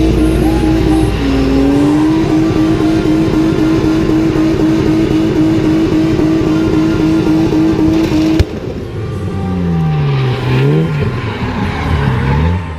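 BMW M50B25 inline-six held at steady high revs through a rear-wheel burnout, dipping briefly once. About eight seconds in it cuts off suddenly, and the engine then revs up and down several times.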